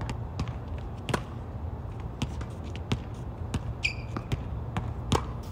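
Tennis ball bouncing on a hard court and being struck by racquets: a string of sharp, irregular knocks, the loudest about a second in and near the end, over a steady low hum. A brief squeak about four seconds in, typical of a shoe on the court.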